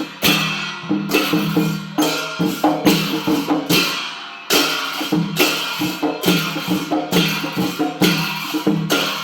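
Traditional Newar drum-and-cymbal music: a pitched drum beaten in a fast, repeating rhythm, with a ringing cymbal wash over each beat. The drumming eases off for a moment a little after the middle, then picks up again.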